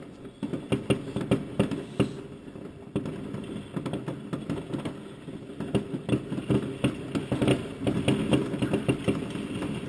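Many fireworks going off at once, near and far: a steady run of sharp bangs and crackles at irregular intervals over a constant low rumble.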